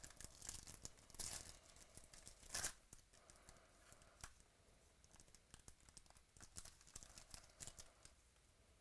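Foil wrapper of a baseball card pack being torn open and crinkled, loudest in the first three seconds with one sharp rip near the middle. Quieter flicks and slides of the cards being thumbed through follow.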